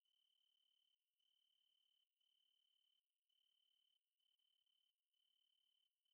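Very faint, steady cricket trill, a single high tone broken by a short gap about once a second.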